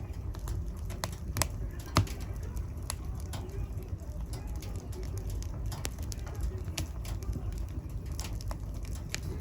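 Wood fire crackling in a fireplace: a low steady rumble of flames with scattered small crackles, a sharper pop about two seconds in and another near the end.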